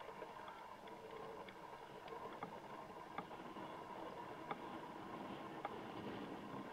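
Faint, steady background noise of a soccer match in play, with a handful of short, sharp knocks scattered through it.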